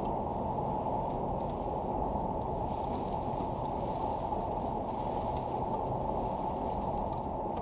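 Vehicle driving over a rough, unpaved road patch: a steady rumble of road and tyre noise with faint rattles.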